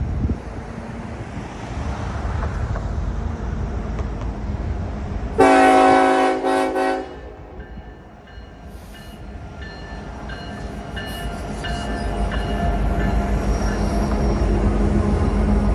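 Diesel locomotive's Nathan K5LLA air horn sounding one short blast, a loud chord about five seconds in, over wind rumble. Near the end a locomotive's engine rumble builds steadily louder.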